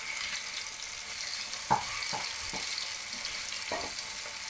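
Rösti of grated raw potato frying in plenty of hot oil in a pan: a steady sizzle, with a few brief clicks, the loudest a little under two seconds in.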